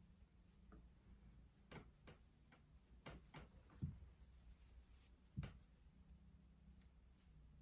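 Quiet, irregular clicks and taps of wooden knitting needles being worked and handled, a few soft ones and two sharper ones past the middle, over a faint low room hum.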